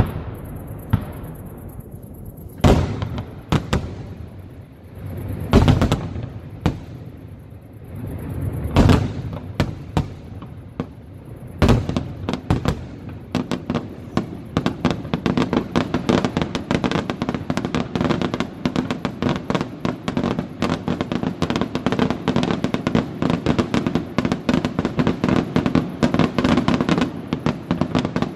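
Aerial fireworks shells bursting: single loud booms about every three seconds in the first half, then from about halfway a dense, fast run of bangs and crackling that goes on without a break.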